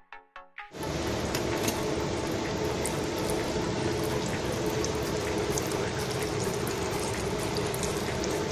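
Engine oil running in a thin stream from the open drain of a dry-sump oil tank into a catch container: a steady liquid pouring rush that starts about a second in.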